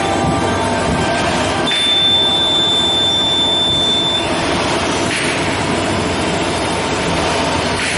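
Plastic (PE) bag sealing and cutting machine running steadily. A thin, high, steady tone sounds for about two and a half seconds, starting about two seconds in.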